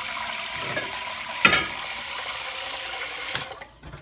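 Kitchen tap running water into a metal pot in a stainless-steel sink, a steady rush, with one sharp clank about a second and a half in. The flow stops shortly before the end as the tap is shut off.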